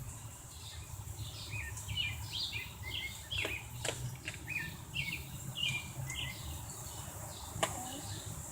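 Birds chirping in quick, repeated short notes, with a few sharp clicks.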